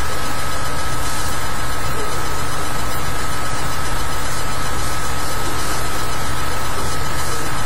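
Steady, loud hiss with a low rumble under it and one constant high whine. Nothing starts or stops.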